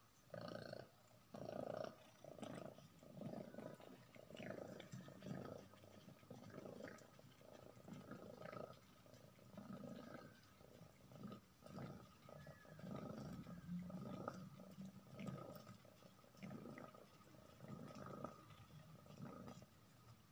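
Ginger cat purring up close, a soft pulsing that comes about one and a half times a second.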